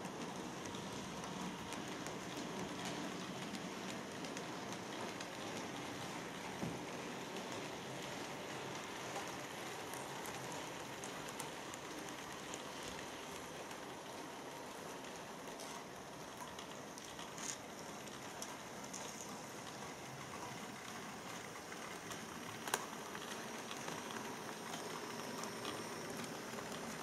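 Model railway locomotive pulling a full train of wagons round a test circuit: a steady whirring rumble of small metal wheels on track, with a few light clicks and one sharper click about three-quarters of the way through.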